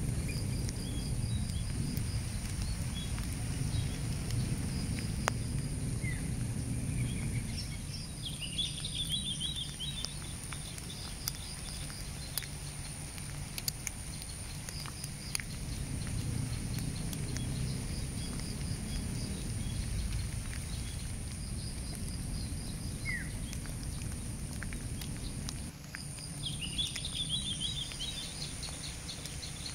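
Outdoor nature ambience after rain: a steady high-pitched insect drone, with birds chirping and giving quick trills every few seconds over a low, uneven rumble.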